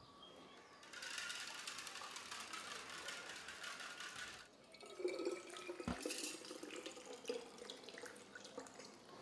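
Water splashing and trickling for a few seconds, then a sharp knock about six seconds in followed by lighter clatter.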